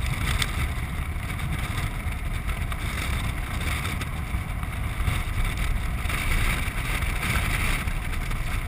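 Land yacht sailing across a hard, dry lake bed: steady wind buffeting the microphone over the rolling noise of the wheels.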